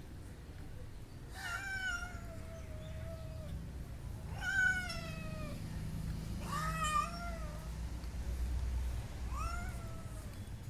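Domestic cat meowing four times: a long, drawn-out call that falls slowly in pitch, then three shorter meows.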